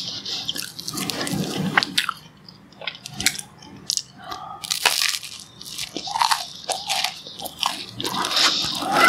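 Biting and chewing toasted brown bread spread with strawberry jam: crisp crunches and crackles, with quieter chewing in between.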